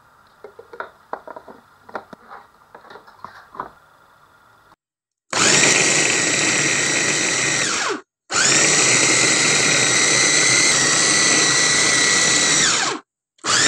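A few light clicks and knocks from handling the plastic chopper bowl with the chicken pieces in it. Then an electric food chopper runs in two bursts of about three and four seconds, mincing raw chicken fillet, its motor whine falling in pitch each time it is switched off. A third burst starts at the very end.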